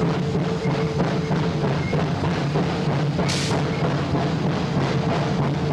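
Cab noise of the US Army 2-8-0 steam locomotive No. 610 under way: a dense, rhythmic clatter over a steady low rumble, with a short hiss a little over three seconds in.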